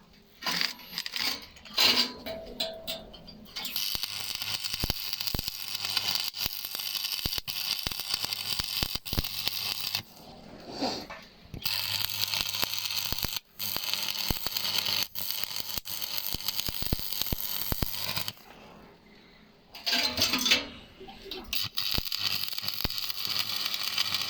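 Stick (shielded metal arc) welding arc crackling and popping with a steady frying sound, stopping twice for a second or two.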